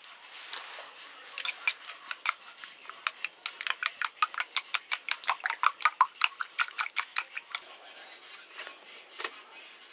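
A metal utensil clinking rapidly against a dish, several sharp strokes a second, starting about a second in and stopping near the end, with one more clink just before the end.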